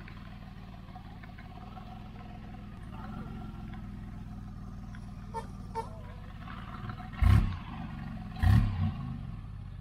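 DeLorean DMC-12's V6 engine idling steadily, with two short loud bursts a little over a second apart near the end.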